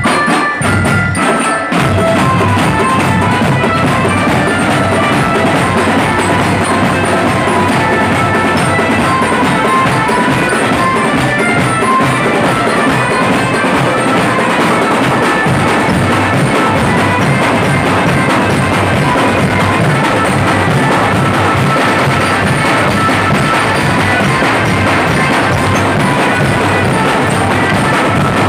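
A marching drum band playing: massed bass drums and snare and tenor drums beat a fast, dense rhythm, with metal-bar mallet instruments picking out a melody on top. A few separate accented hits come in the first two seconds before the full band plays without a break.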